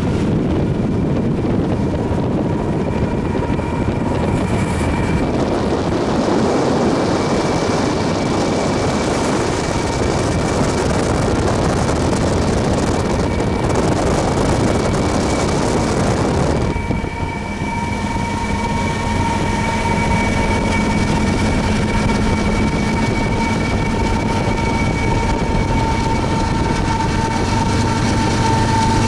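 Norfolk Southern's Conrail-heritage GE ES44AC diesel locomotive 8098 passing at the head of an intermodal freight train: a loud, steady rumble of engine and rolling cars, with a steady high whine over it. About 17 seconds in, the rumble thins and the locomotive's engine drone and whine come to the fore.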